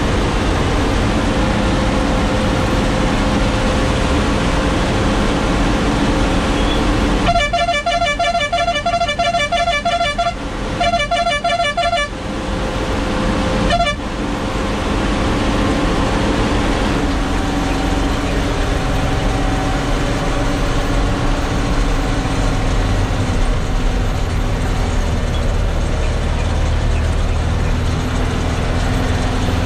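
Truck's diesel engine running under load on an uphill climb, heard from inside the cab. About seven seconds in, a horn sounds in rapid pulses for about three seconds, again for about a second, then gives one short toot.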